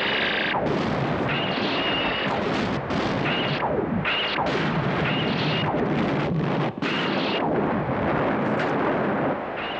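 Science-fiction battle sound effects: laser torpedoes firing and floating space mines blowing up. A continuous din of blasts runs throughout, with repeated laser zaps, several falling in pitch, and a high tone that cuts in and out.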